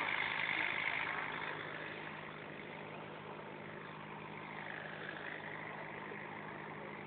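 Inboard engine of a motor fishing launch running steadily underway, with a rushing noise that is louder for the first second and a half and then eases.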